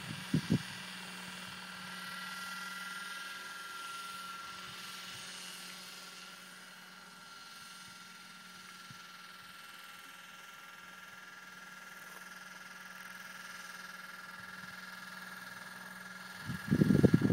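Radio-controlled scale Bell 206L helicopter in flight: a steady high whine from its motor and rotors, easing off a little in the middle and growing again toward the end. Loud low rumbles, likely wind buffeting the microphone, come just at the start and again near the end.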